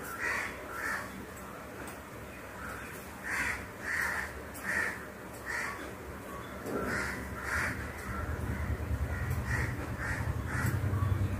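Background birds calling, a string of short separate calls about one a second, with a low rumble building from about eight seconds in.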